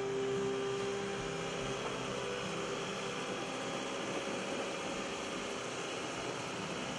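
New Holland LS170 skid steer loader's diesel engine running steadily, with a held tone that fades out a couple of seconds in.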